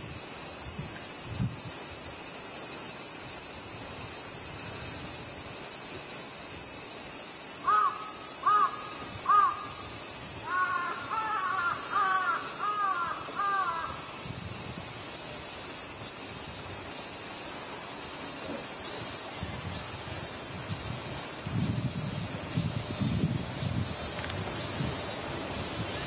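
Jungle crow (Corvus macrorhynchos) cawing in two runs: about four caws a little after seven seconds in, then a quicker run of six or so that stops around fourteen seconds in. A steady high drone of insects runs underneath.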